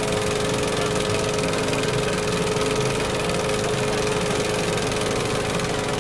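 Small live-steam plant of a Meccano crawler model running steadily at a slow crawl: a constant hiss over a steady mid-pitched hum.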